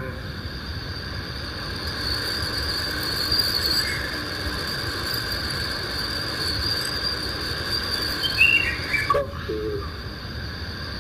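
Crickets trilling steadily over a background hiss and low rumble. A short rising call comes about eight seconds in, and a brief voice sound follows about a second later.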